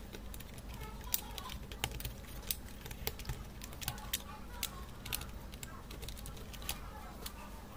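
Small irregular clicks and taps of plastic parts being handled and pressed into a mini projector's plastic housing during reassembly.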